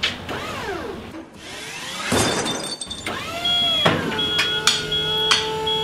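A power tool's motor stripping paint off the top of a steel shipping container for welding: it winds down, spins back up about three seconds in, then runs steadily. Sharp metallic clacks come about every two-thirds of a second near the end, and a high beep repeats in short pulses.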